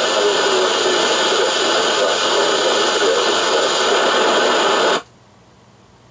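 Binatone Breakerphone FM CB radio's speaker giving loud, even static hiss, the sound of the receiver with its squelch open on no clear signal. The hiss cuts off abruptly about five seconds in.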